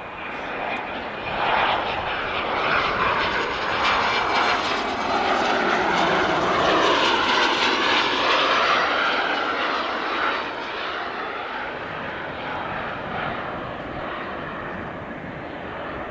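Cessna Citation XL twin-turbofan business jet passing close by as it comes in to land. The jet noise swells to its loudest about seven seconds in, then fades.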